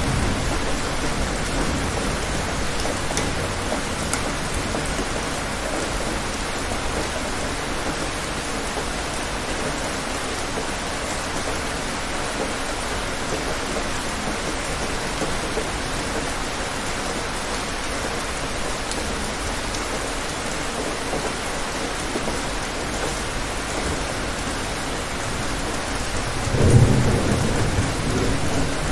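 Steady rain falling, with thunder rumbling low near the end.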